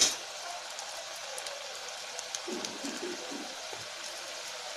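Bread-crumb-coated bitter gourd slices deep-frying in hot oil: a steady sizzle with fine crackles, briefly louder at the very start.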